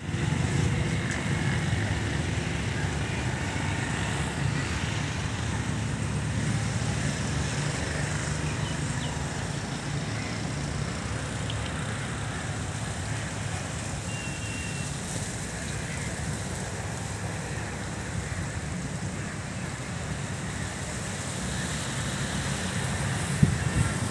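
Steady low outdoor rumble of road traffic mixed with wind on the microphone.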